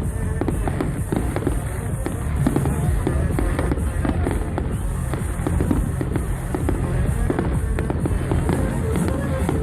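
Fireworks bursting in a dense, unbroken run of bangs and crackles, with music playing underneath.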